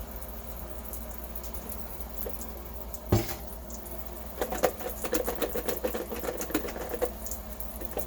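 A single knock about three seconds in, then a few seconds of rapid clicking and gurgling as CLR-and-water descaling solution is poured into a coffee-maker part. A steady low hum sits underneath.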